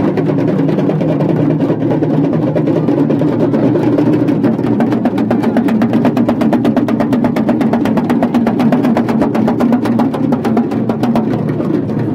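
A group of large hourglass-shaped damru drums beaten with sticks in fast, continuous rolls, many strokes a second, loud and steady throughout.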